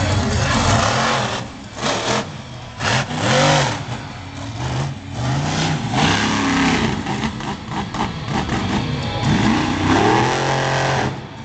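Monster truck engine revving hard, its pitch rising and falling again and again, with a few short dips where the throttle comes off.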